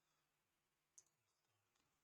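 Near silence with a few faint clicks of a computer mouse, the clearest about a second in and a weaker one near the end.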